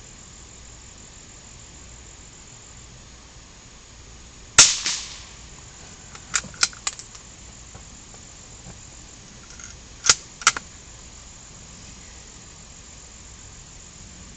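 A single gunshot with a short echoing tail about four and a half seconds in, followed by a quick run of three quieter sharp clicks or cracks and, near ten seconds, two more sharp reports half a second apart.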